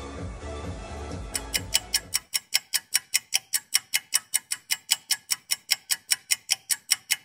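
Clock ticking, a sharp regular tick about four times a second that stops abruptly at the end; background music fades out under it about two seconds in.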